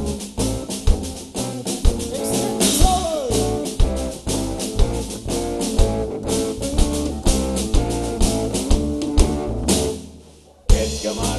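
Live band playing an instrumental passage on drum kit and guitars. Near the end the band stops briefly, then comes back in on a loud hit.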